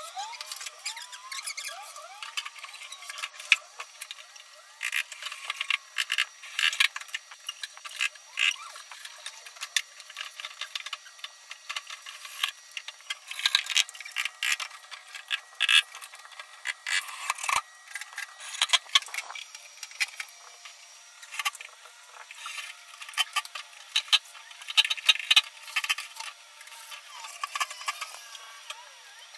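Irregular clicks, taps and clatter of screws, metal drawer-slide and hinge hardware and tools on particleboard cabinet panels during flat-pack furniture assembly, with a short rising cordless-drill whine near the start.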